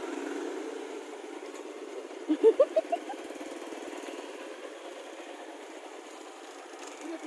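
A motor vehicle's engine running steadily. About two and a half seconds in, a quick run of short, loud rising sounds stands out over it.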